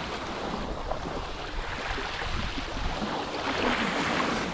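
Small waves lapping and sloshing, with wind noise: a steady wash of water sound that swells a little near the end.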